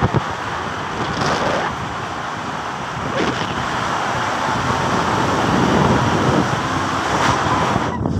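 Steady noise of an inner tube sliding fast down a plastic-tiled slide, with wind on the microphone and a few light bumps. It cuts off suddenly near the end as the ride stops.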